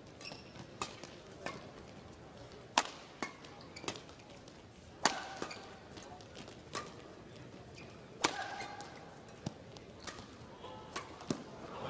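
Badminton rackets striking the shuttlecock back and forth in a rally: sharp cracks at irregular intervals, the two loudest about 3 s and 5 s in.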